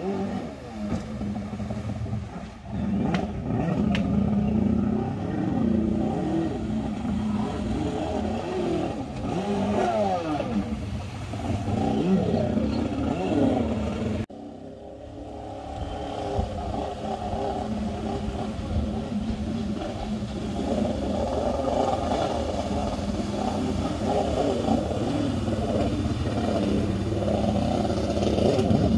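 Krash Footrocket stand-up freestyle jet ski's engine revving up and down as it is ridden hard, its pitch rising and falling with the throttle. The sound breaks off abruptly about halfway through and picks up again.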